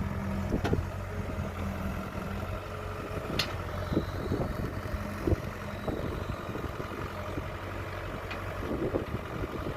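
Kobelco excavator's diesel engine running steadily, with scattered knocks and clunks from the machine at work.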